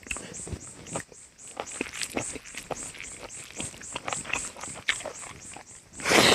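Close-up eating sounds: irregular wet chewing and mouth smacks, with a louder noisy slurp or crunch about six seconds in.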